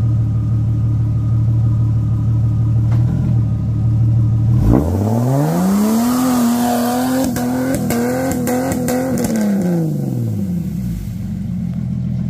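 Jeep 4x4's engine idling, then revved hard about four and a half seconds in as it drives through deep mud. The revs are held high for about four seconds with several sharp knocks, then drop back to idle near the end.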